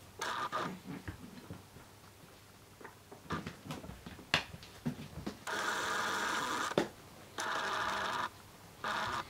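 A cat hissing in several abrupt bursts, the longest over a second, with a few scattered knocks and scrapes from cats scuffling around a plastic pet carrier.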